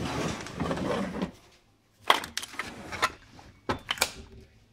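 A drawer full of loose metal coaxial connectors being slid, the connectors rattling for about a second, then several sharp metallic clinks and knocks in the second half.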